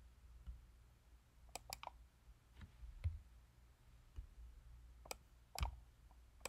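Faint, irregular clicks over a low steady hum, three of them in quick succession about a second and a half in.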